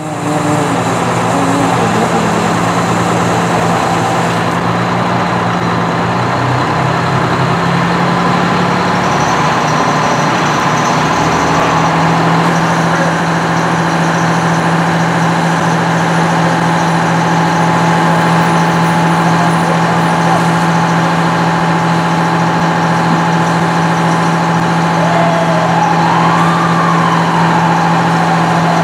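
Heavy diesel truck engine running steadily, a constant low hum, with the hiss of hose water spraying over it.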